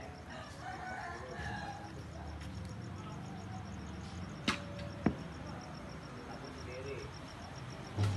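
Quiet room ambience: a steady low hum under a faint, evenly pulsing high chirp about four times a second, with two sharp clicks about half a second apart midway and a dull thump right at the end.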